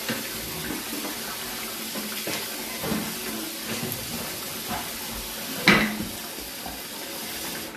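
Tap water running into a pot as parboiled black-eyed beans are rinsed and washed, with a few knocks of the pot and one louder clunk about six seconds in. The running water stops suddenly at the very end.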